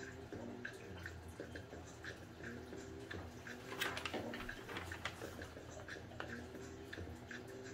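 A folded paper instruction sheet rustling and crackling as it is unfolded and handled, loudest just before four seconds in. Under it runs a faint, regular ticking of about three ticks a second.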